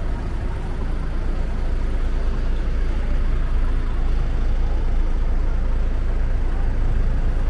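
Steady low rumble, growing slightly louder about two seconds in.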